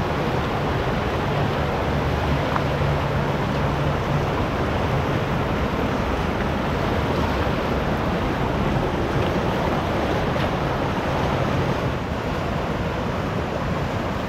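Shallow mountain creek rushing steadily over rocks and riffles.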